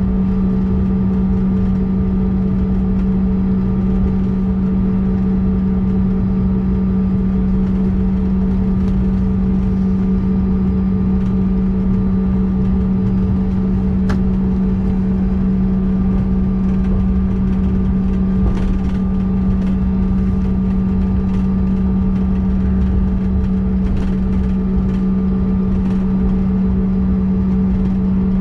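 Cabin noise of a CRJ-200 regional jet taxiing with its rear-mounted turbofans at idle: a steady drone with a low hum held at one pitch and a rumble underneath. A few faint clicks sound partway through.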